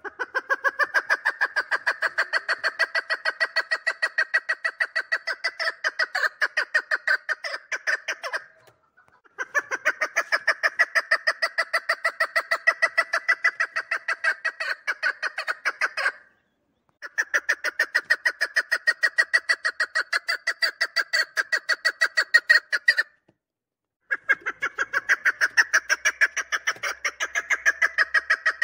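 Chukar partridge calling: long runs of rapid, evenly repeated short notes, in four bouts broken by pauses of about a second.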